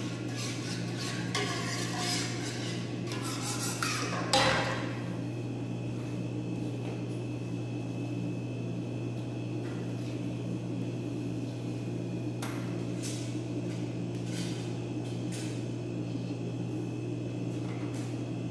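Metal ladle scraping and clinking against a wok of stock, with one sharper knock about four seconds in and a few light clinks later, over a steady low hum.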